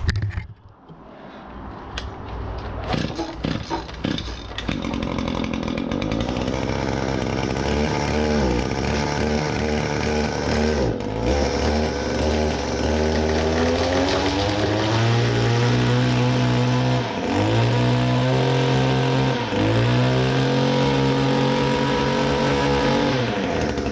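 Gas string trimmer pulled over a few times, catching after about four seconds. It idles, then is revved up several times, its pitch rising and dropping between bursts, as it is test-run after being cleaned and restrung.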